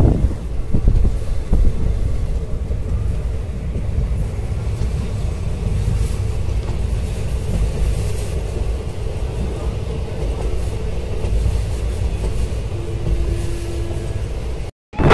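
Indian Railways passenger coach running at speed: a steady low rumble of wheels on the track, heard from inside the coach. The sound cuts out abruptly for a moment near the end.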